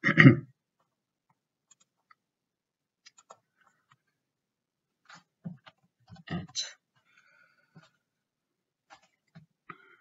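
A few scattered, sparse computer keyboard key clicks, with a short loud noise right at the start.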